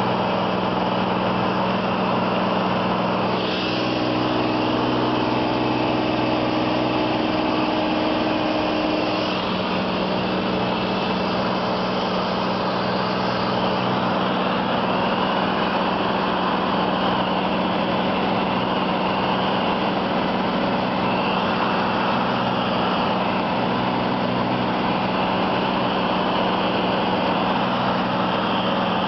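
Light aircraft's propeller engine running steadily at cruise, heard from inside the cabin as a constant hum with rushing air noise.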